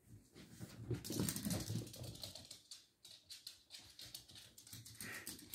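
A small dog's claws clicking rapidly on a hardwood floor as it runs, in quick light taps that are busiest in the first half.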